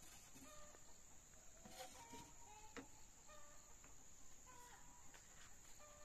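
Faint rural ambience: a steady high insect trill with short bird calls every second or so, and a couple of light knocks about two to three seconds in.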